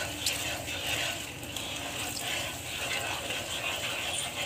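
Metal spatula scraping and stirring across the bottom of a non-stick pan through a thin milk, ghee and sugar mixture as the sugar dissolves; a steady, uneven scraping.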